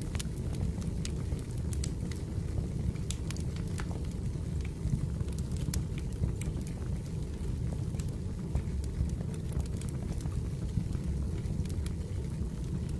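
Firewood burning: a steady low rumble with scattered sharp crackles and pops at irregular moments.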